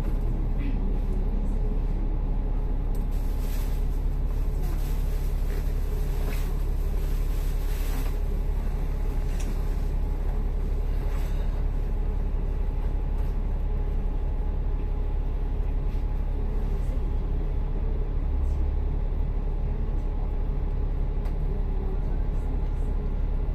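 Steady low rumble of a public bus's engine and tyres heard from inside the cabin while the bus is moving, with a few faint rattles.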